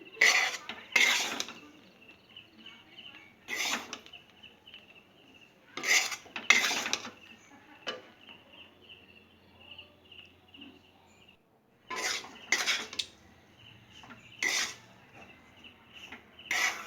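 Grated coconut being stirred in a hot kadai (wok) off the heat, the utensil scraping the pan in short strokes, often two close together, with pauses between. The stirring keeps the browned coconut from burning in the still-hot pan.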